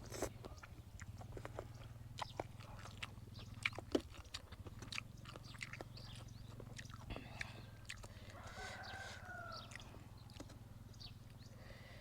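Eating sounds: scattered crunching and chewing clicks from someone eating a glass-noodle salad with chicken feet, over a steady low hum. About nine seconds in, an animal calls once for about a second.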